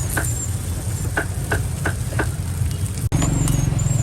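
A motor vehicle engine running steadily with a low rumble, with four sharp knocks about a third of a second apart in the middle. The rumble jumps louder suddenly a little after three seconds in.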